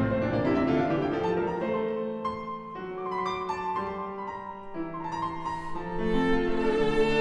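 Classical music played on piano and bowed strings, violin and cello, in long held notes; it softens in the middle and swells again near the end.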